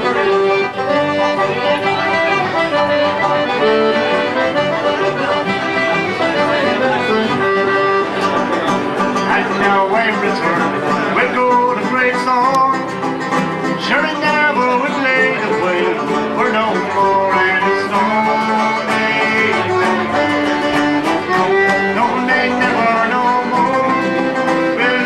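Live Irish traditional music with no singing: a banjo plucking the tune over a piano and other instruments.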